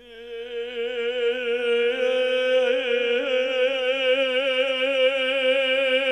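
Devotional chant: a single voice sings one long held note with a slow wavering vibrato, beginning right at the start and sustained throughout, with no drum beat.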